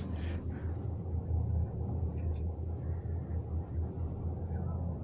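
Steady low rumble inside a Cablebús gondola cabin as it rides along its cable.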